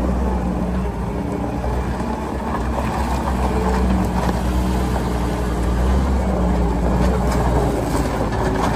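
Case 420 skid steer loader's Case diesel engine running steadily with a deep rumble, its pitch shifting slightly up and down.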